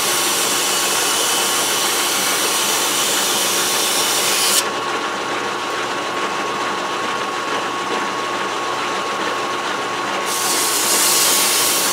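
Metal lathe running steadily while abrasive cloth is pressed against the spinning workpiece, giving a hiss that stops suddenly about four and a half seconds in. The lathe's steady whine and hum carry on, and a similar hiss comes back near the end.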